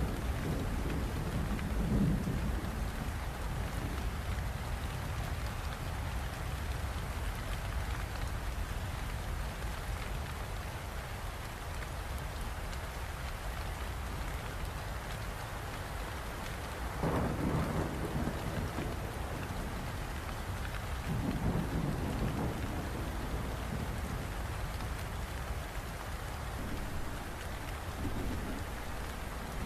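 Steady rain falling, with several low rolls of thunder: one at the start, two in the latter half, and a weaker one near the end.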